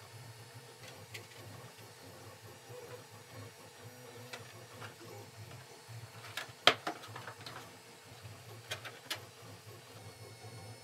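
Scattered light clicks and taps of hard 3D-printed PLA fuselage parts being handled and pressed together, the sharpest click about two-thirds of the way through, over a steady low hum.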